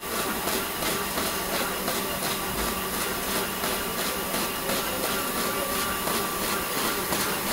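Barcode printing machine running steadily: an even mechanical clatter of regular ticks with a hiss and a thin steady whine.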